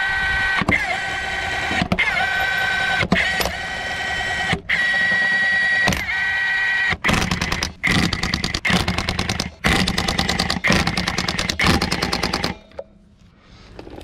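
Cordless impact wrench running lug nuts onto a wheel: several short runs of free-spinning whine, each rising in pitch as it starts. About seven seconds in it changes to rapid hammering in repeated bursts as the nuts seat and snug up, stopping shortly before the end.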